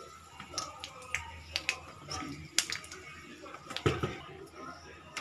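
Cumin seeds and curry leaves crackling in hot oil in a kadhai: scattered sharp pops, a few a second, as the tempering splutters. There is a duller knock about four seconds in.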